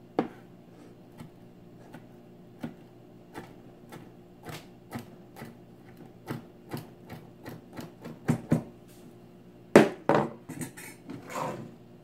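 Chef's knife chopping cilantro on a wooden cutting board: a string of short, sharp knocks of the blade on the wood, irregular and coming faster after the middle, with a few louder knocks near the end.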